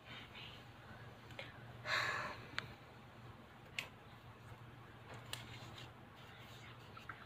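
Faint handling of paper and small objects on a tabletop: a brief paper rustle about two seconds in and a few light clicks or taps, over a low steady hum.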